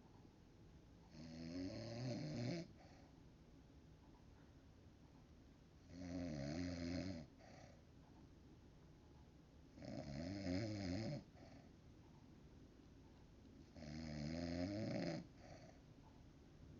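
A woman snoring in her sleep: four long snores, each lasting just over a second and coming about every four seconds, with quiet breathing-room hiss between them.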